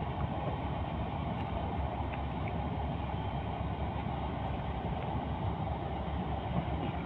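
Steady engine and water noise of a boat under way at sea.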